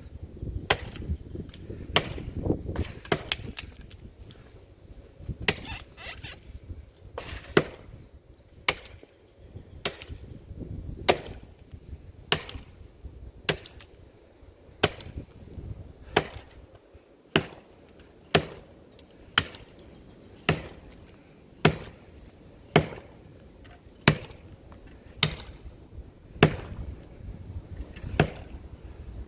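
A Council Tool Woodcraft Pack Axe chopping into the trunk of a dead, dry pine tree, with sharp, steady blows about once a second.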